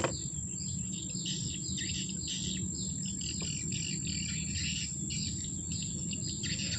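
Riverside outdoor ambience: small birds chirping rapidly and continuously over a steady high insect drone and a low background rumble, with one sharp click at the start.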